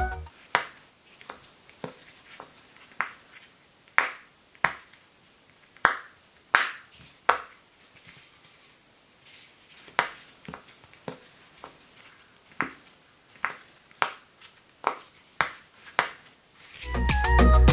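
Homemade paw-shaped pop-it fidget toy with its domes being pressed in by fingers: a series of short, sharp pops at irregular intervals, about two dozen in all. Background music comes back near the end.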